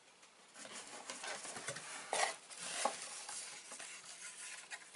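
Small items being handled: light clicks, taps and rustling as a plastic keychain and the box's contents are moved about, with two sharper clicks about two and three seconds in.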